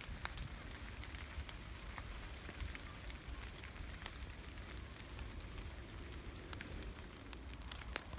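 Gentle rain falling in a forest: a steady hiss with scattered sharp drips of individual drops landing close by.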